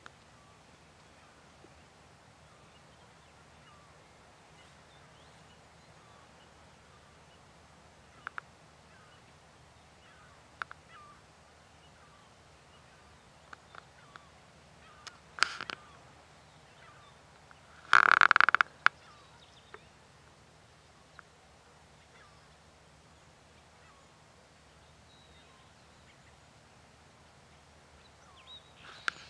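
Quiet outdoor ambience with faint, scattered small-bird chirps and a few sharp clicks, broken about eighteen seconds in by one loud, harsh, honk-like bird call lasting about half a second.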